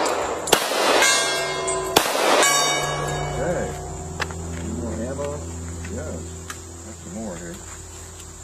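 Two shots from a Glock 21 Gen 4 .45 ACP pistol about a second and a half apart, near the start, each followed by steel targets ringing. Insects drone steadily throughout.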